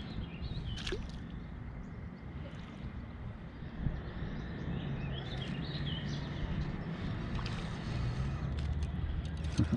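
Outdoor ambience: a steady low rumble with a few faint bird chirps and occasional light clicks.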